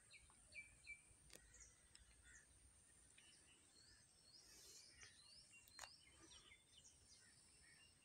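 Faint rural outdoor ambience with many scattered short bird chirps and calls, busiest in the middle of the stretch, over a steady high-pitched hiss. Two sharp clicks, one about a second in and one near six seconds.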